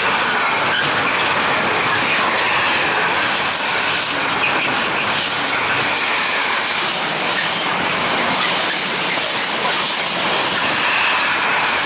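Intermodal container freight train's wagons running past at speed, wheels clattering steadily over the rails with a faint high wheel squeal.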